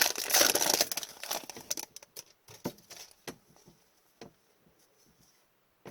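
Foil trading-card pack wrapper crinkling for about the first second, then a few scattered light clicks and taps as cards are handled, trailing off to near quiet.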